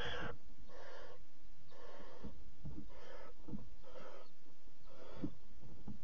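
Barn owl nestlings making their hissing, snore-like begging calls for food, about one a second, the first the loudest.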